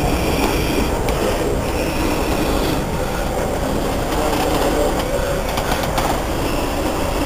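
Steady rumble and rattle of a heavily loaded 26-tonne truck rolling slowly on asphalt as it is pulled along.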